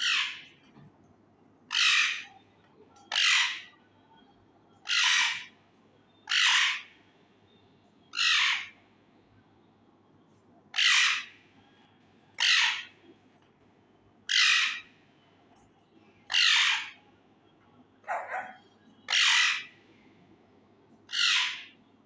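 A caged male ring-necked parakeet screeching loudly, a short harsh call about every one and a half to two seconds, around a dozen in all.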